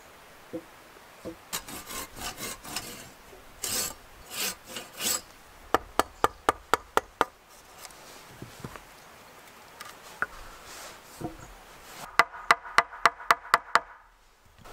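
Knife scraping and shaving peeled wood in several strokes, then two quick runs of sharp wooden knocks, about five a second: a small wooden mallet tapping at a joint of peeled log poles.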